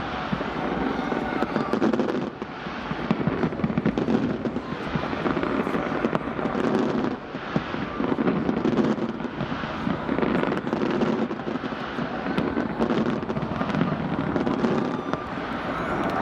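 Aerial fireworks display: shells bursting in rapid, overlapping bangs and crackles with no break.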